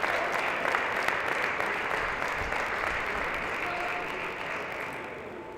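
Spectators applauding a won point, a dense patter of clapping that dies away over the last second or so.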